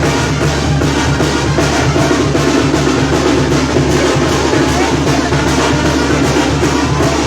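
Loud carnival band music with drums beating steadily.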